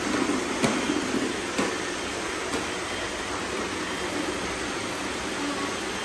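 Several robot vacuums, including an iRobot Roomba and a Eufy, running together on a concrete floor: a steady whirring hum, with a few sharp clicks in the first two seconds.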